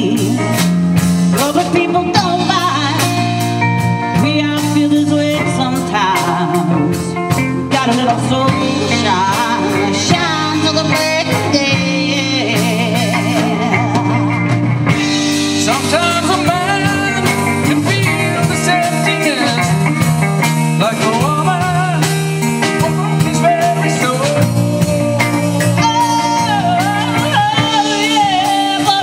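Live blues-rock band playing through a stage PA, with electric guitar, bass guitar and drum kit and a woman singing at times. About halfway through the sound turns brighter.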